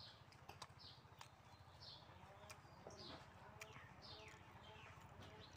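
Faint birdsong: short descending chirps repeating every half second or so, with a few faint clicks of chewing close by.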